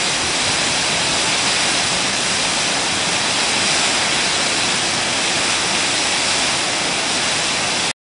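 Steady, even rushing of a waterfall that cuts off abruptly near the end.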